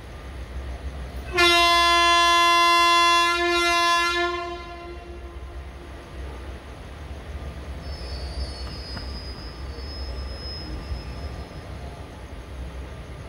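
Indian Railways locomotive horn sounding one long blast of about three seconds, with a brief dip and a short swell just before it dies away. A steady low train rumble runs underneath.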